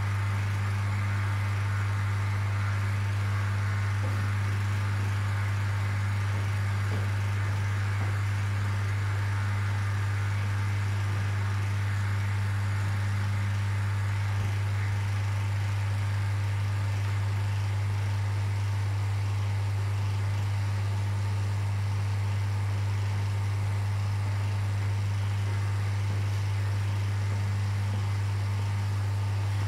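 Steady low electrical hum from running aquarium equipment, with a soft, even hiss of circulating water beneath it.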